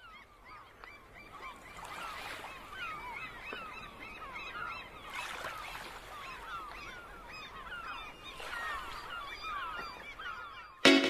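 A flock of gulls calling over and over, many short curved cries overlapping, over the wash of surf that swells about every three seconds. Loud music comes in just before the end.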